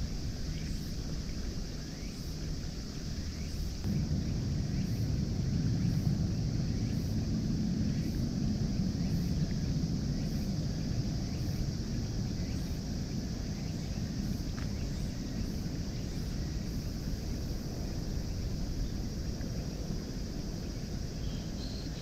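Outdoor ambience: a low rumble of wind on the microphone, louder for several seconds from about four seconds in, over a steady high hiss.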